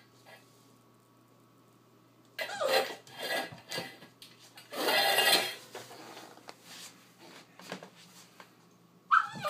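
Stainless steel dog bowl clattering and scraping on a tile floor as a puppy plays with it, in a few bursts with a longer scrape midway. A brief high-pitched sound comes near the end.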